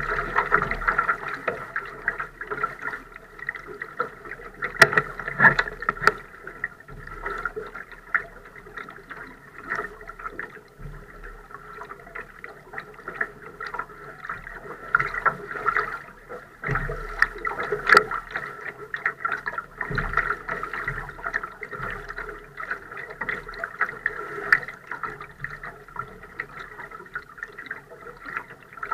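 Water gurgling and lapping against the hull of a Laser dinghy sailing slowly in light air, uneven and continuous, with a few sharp ticks.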